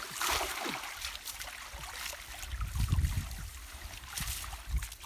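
Shallow canal water splashing and trickling, with a few dull low thumps about three seconds in and again near the end.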